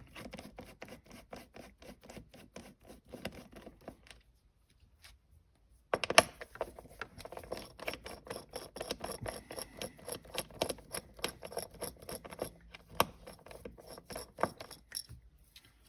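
Socket ratchet clicking in quick, even strokes while backing out 10 mm bolts, stopping for about two seconds partway through and then going on.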